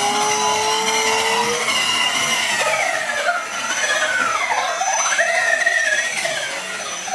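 Electric motor and gear whine of an RC scale crawler, its pitch climbing slowly at first and then rising and falling with the throttle as the truck churns through deep mud, with a thin steady high whine underneath.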